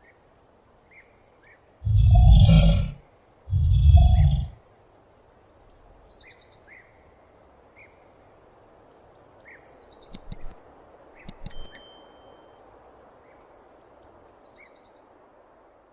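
Komodo dragon giving two loud, low bellows, each about a second long, with birds chirping faintly in the background.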